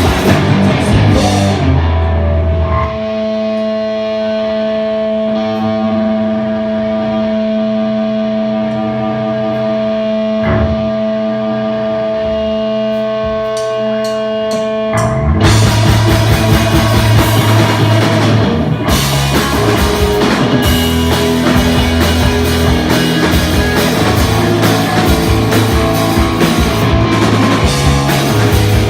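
Live rock band playing. After a moment of full band, a held chord rings on with only a sparse hit for about twelve seconds, then the drums and guitars come back in, louder, about halfway through.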